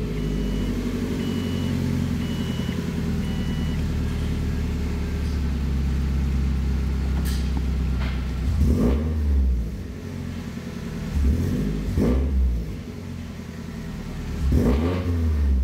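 Subaru Impreza WRX STI's turbocharged flat-four engine idling with a steady low rumble, then revved three times in the second half, each rev rising and falling in pitch over about a second.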